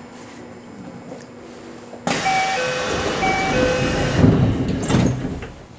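Train doors closing at a station stop: a descending two-note chime repeats a few times over a sudden burst of air hiss, and the sliding doors shut with low thuds near the end.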